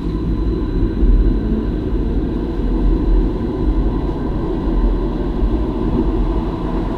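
Stadler Variobahn light-rail tram running at speed, heard from the driver's cab: a steady low rumble of the wheels on the rails, with a faint steady high whine above it.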